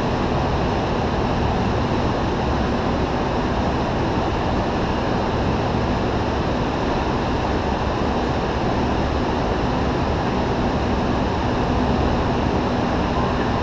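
Go-kart running, heard as a steady rush of engine and track noise with a faint low hum through a camera on the driver's helmet.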